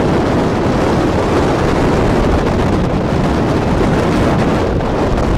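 Strong wind buffeting the microphone in a steady, loud rush. The wash of choppy water lies under it, on a sailing ship running before a brisk 20–30 knot wind.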